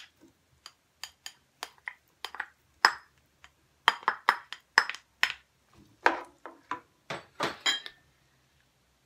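A plastic spatula clinking and scraping against a ceramic bowl in a quick, irregular run of knocks as diced pineapple is pushed off into a frying pan. The knocks stop about eight seconds in.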